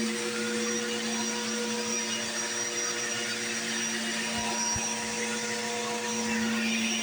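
Bissell PowerForce Bagless 6594 upright vacuum cleaner running steadily while vacuuming: an even motor hum with a steady tone over the rush of airflow.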